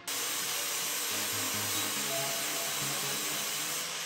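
Aerosol spray-paint can hissing steadily, switching on suddenly, with background music underneath.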